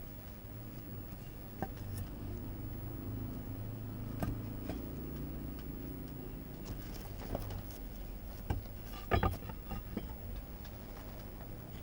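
CNC router running as it mills into pine: a steady low hum with scattered short clicks and ticks, the loudest cluster about nine seconds in.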